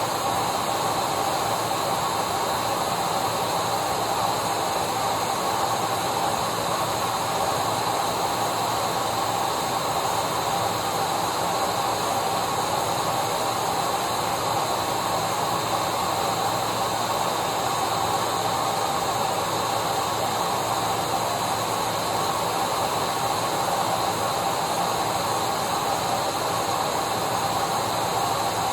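Electric vacuum cleaner running steadily: a continuous rushing noise with a steady motor whine, unchanging throughout.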